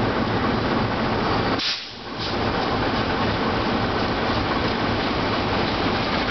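CC201 diesel-electric locomotive hauling a freight train, its diesel engine running with a steady rumble and hum as it approaches. The sound holds steady apart from a brief drop in loudness about a second and a half in.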